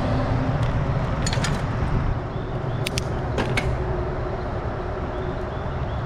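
Bicycle rolling along asphalt: steady low wind rumble on the action camera's microphone with tyre noise, and a few sharp clicks and rattles from the bike about a second in and again around three seconds in.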